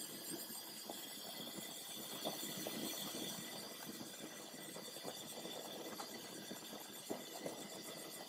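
Vaporised kerosene burning at the head of a Kitson-type lighthouse vapour burner: a faint steady hiss with irregular small pops. This is the burner's warm-up stage, when the blue Bunsen flame starts to blow off the top gauze before the mantle is fitted.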